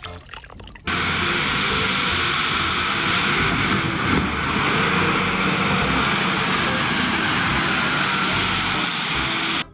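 A loud, steady roar starts abruptly about a second in and cuts off suddenly just before the end, with music faintly underneath.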